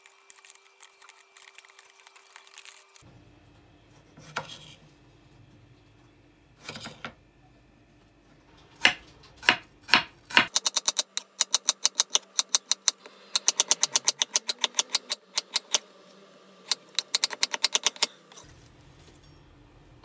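Chef's knife slicing an onion on a wooden chopping board: a few single knocks, then quick runs of blade strikes on the board, about six a second, with short pauses between runs.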